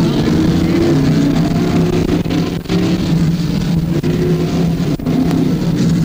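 Several stock car engines running together in a race, their steady engine notes rising and falling slightly as they overlap, heard on an old track recording.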